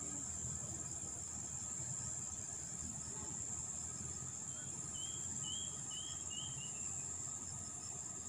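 Insects trilling in a steady, high-pitched shrill, with four short chirps about five seconds in, over a low rumble.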